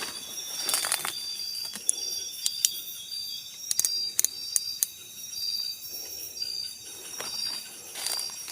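Forest insects chirping, a short high chirp repeating about twice a second over a constant high-pitched drone. A few sharp clicks and soft rustles come and go among them.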